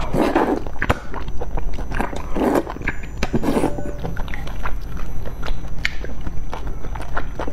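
A person slurping wide noodles out of a bowl of spicy broth, with several long slurps in the first few seconds, then wet chewing and smacking of the mouth.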